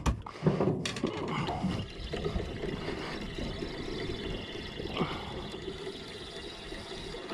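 Sea water sloshing and slapping against the side of a small boat, with a couple of sharp knocks in the first second.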